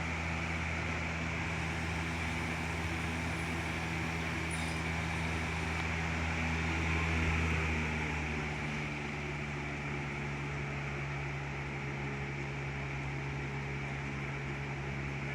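Lasko box fan running, a steady motor hum under the rush of air. About eight seconds in, the deepest part of the hum drops away and the sound gets slightly quieter.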